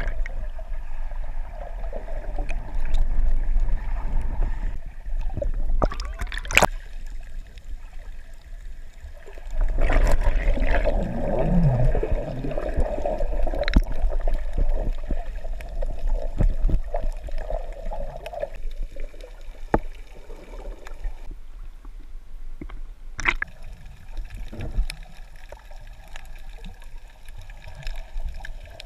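Muffled underwater sound picked up through an action camera's waterproof housing: water sloshing and bubbling against the case, with a low rumble and a few sharp knocks, getting louder for several seconds from about ten seconds in.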